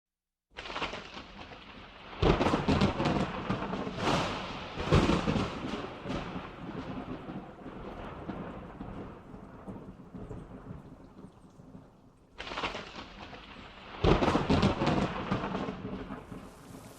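Thunderstorm: rain falling steadily with repeated thunder, the loudest claps about 2, 4, 5 and 14 seconds in.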